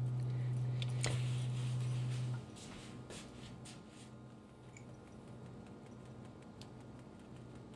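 A steady low hum that cuts off suddenly about two and a half seconds in, with a click about a second in. After that come faint light taps and rustling as powdered sugar is shaken through a small sieve over a loaf cake.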